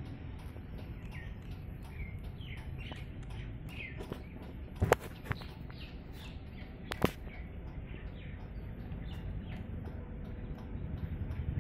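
Small birds chirping, a string of short falling chirps, over a steady low rumble. Two sharp clicks stand out, about five and seven seconds in.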